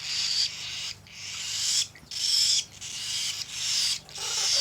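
Baby cockatiels' food-begging calls: raspy, hissing cries repeated about five times, each swelling louder before breaking off.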